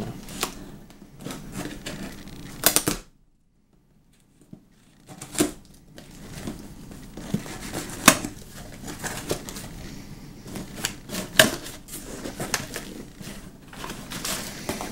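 A cardboard shipping box being opened and unpacked by hand: an irregular run of sharp clicks, taps and rustles from the flaps, tape and contents. The sound drops out for about two seconds near the start.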